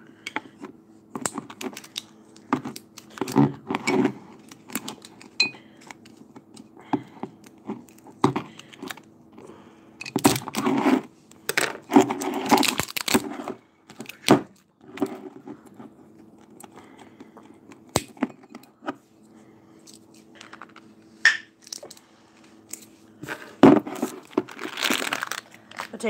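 Phone handling noise: rustling, crinkling and small knocks against the microphone in irregular bursts, heaviest about ten to thirteen seconds in and again near the end. Under it runs a steady low hum.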